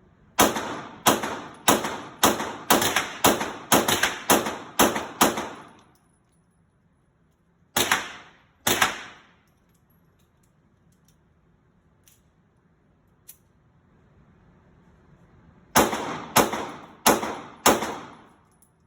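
Gunshots at a firing range: a run of about ten shots fired roughly half a second apart, two more shots a few seconds later, then a quick string of about four near the end, each shot followed by a short ringing tail.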